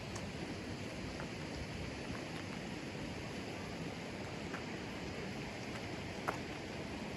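Steady rush of a fast-flowing river, with a few faint clicks, the sharpest about six seconds in.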